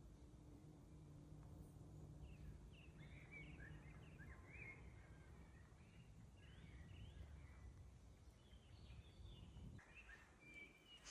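Faint songbird chirps and short calls, in a cluster from about two seconds in and again near the end, over a steady low rumble.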